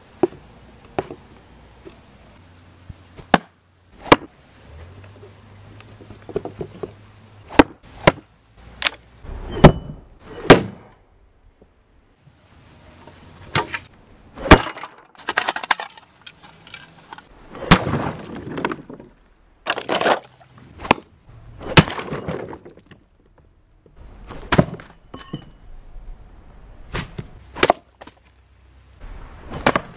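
Steel shuriken striking test targets (a wooden board, a metal pan, a watermelon): a string of sharp knocks, cracks and clanks, some ringing briefly, with short scraping, chopping sounds between them.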